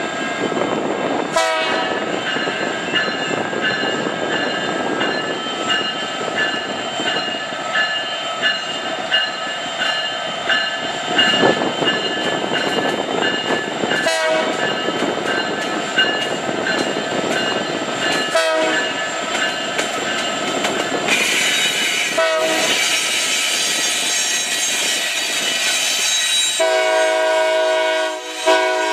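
Norfolk Southern diesel freight locomotives passing close by, with engines running and wheels going over the rail with occasional sharp clacks. Near the end a locomotive horn sounds a loud, steady chord of several tones.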